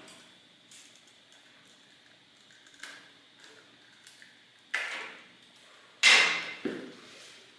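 Objects being handled, with small clicks and three sharp knocks, the loudest about six seconds in, like tools being picked up and set down or a drawer being worked.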